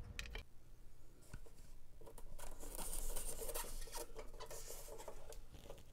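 Faint handling sounds on the metal case of a Tektronix 422 oscilloscope's power supply unit as it is unscrewed and pulled apart: a few light clicks at first, then, from about two seconds in, a run of scraping and small clicks.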